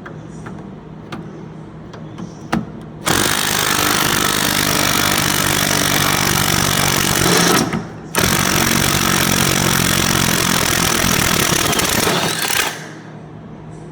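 Ryobi cordless impact wrench hammering on a rusted cab mount bolt, in two long runs of about four to five seconds with a brief stop between them, starting about three seconds in. A few small metallic clicks come before it.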